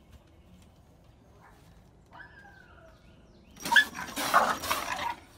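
Small dog barking in a loud, quick flurry near the end, after a single short call falling in pitch about two seconds in.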